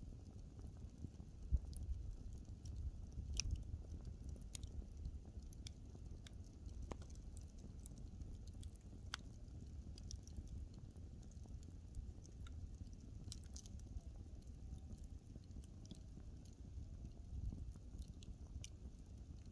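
Wood fire burning with a low steady rumble and irregular sharp crackles and pops of burning wood.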